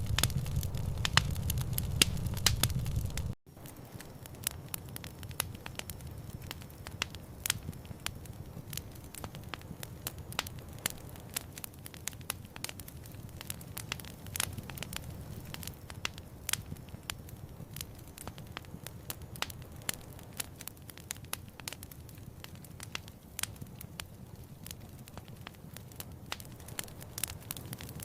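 Wood fire crackling, with frequent irregular sharp pops and snaps. About three seconds in, a sudden cut drops a low rumble, and the crackling carries on more quietly.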